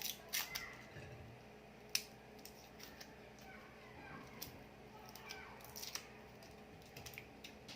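Garlic cloves being peeled by hand: scattered sharp little clicks and crackles of the dry papery skins coming away, at irregular intervals.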